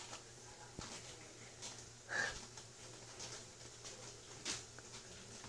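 Kittens shifting about in a mesh playpen: faint scattered rustling and soft patter, with a brief high squeak about two seconds in, over a steady low hum.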